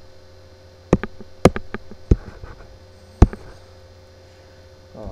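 Several sharp computer-mouse clicks, the loudest about 1, 1.5, 2 and 3 seconds in, over a steady electrical hum.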